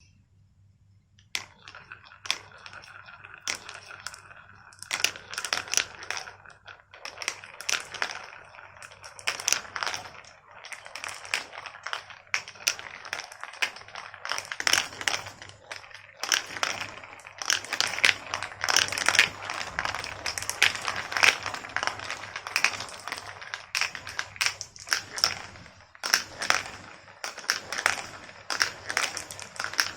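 Marbles rolling and clattering down a marble run's tracks: a dense stream of clicks, knocks and rattles that starts about a second in and grows busier toward the end.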